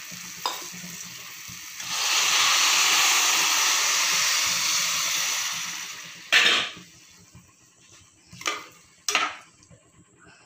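Water poured from a steel tumbler into a hot pressure cooker pan of fried vegetables and wheat rava, a steady hiss lasting about four seconds that then fades. After it come three sharp metal clinks against the pan.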